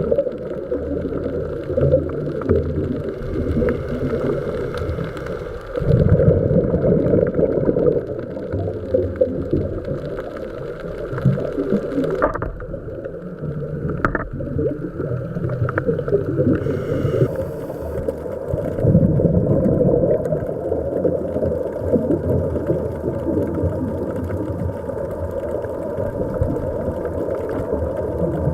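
Underwater sound through a dive camera's housing: a scuba diver's regulator breathing and exhaust bubbles, a muffled low churning that rises and falls in surges, with a louder surge about six seconds in.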